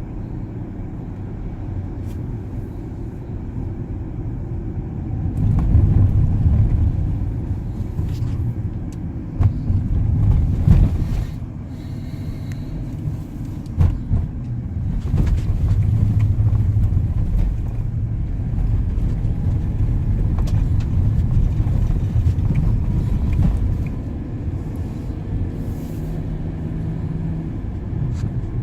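Car driving, heard as a steady low rumble of road and engine noise that swells louder in stretches, with a few short knocks.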